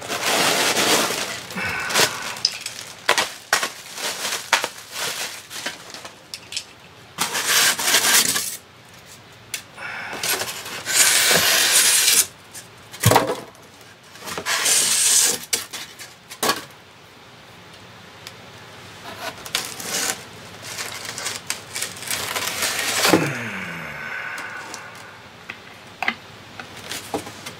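Styrofoam packing sheets squeaking, creaking and scraping against cardboard in irregular bursts as a wooden mantel clock case is worked out of a tight styrofoam-lined box.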